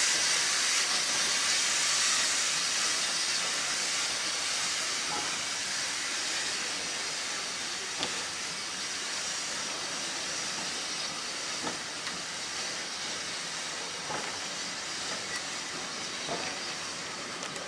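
Steam locomotive standing with its train, steam hissing off the engine in a steady hiss that gradually dies down. A few faint knocks and clanks come in the second half.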